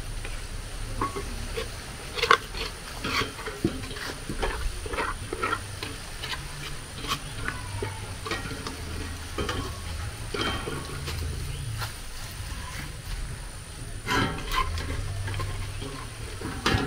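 A spoon scraping and knocking in a pot as the thick, cooked rice fufu dough is worked, in scattered strokes over a steady low hum.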